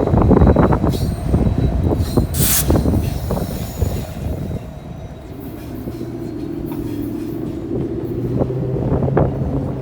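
Freight train cars rolling past, their wheels clicking rapidly over the rails, with a brief high screech about two and a half seconds in. The rolling fades about halfway through, leaving a steady low drone.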